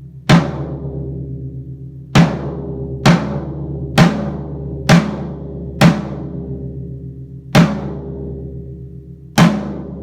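7-ply birch 14x16 floor tom, its heads tuned low, struck eight times at uneven intervals of one to two seconds. Each hit rings out with a deep, sustained tone.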